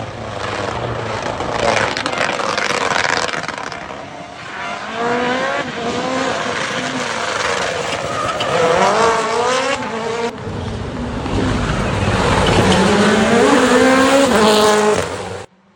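Rally cars at full throttle on a special stage, engines revving hard with the pitch climbing in repeated steps as they shift up through the gears. A second car is heard accelerating after a cut about ten seconds in, and the sound stops abruptly near the end.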